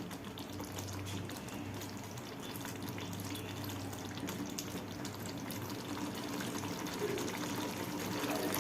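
Pan of chicken masala gravy sizzling and bubbling faintly as a steady hiss with light crackles, just after the gas flame is turned off, over a low steady hum.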